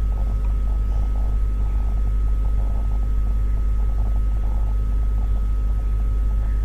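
Steady low hum under faint background noise, with a thin steady high tone above it.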